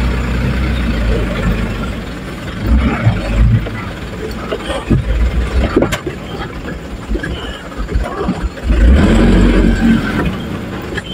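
Truck engine running at low speed, heard from inside the cab, with knocks and rattles as the truck jolts over a rutted dirt road. The engine grows louder for a moment near the end.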